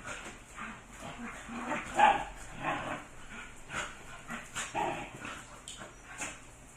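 Several dogs play-fighting, making short, irregular vocal sounds, the loudest about two seconds in.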